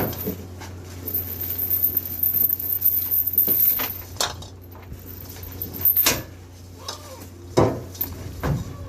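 Irregular metallic clinks and knocks, over a steady low hum.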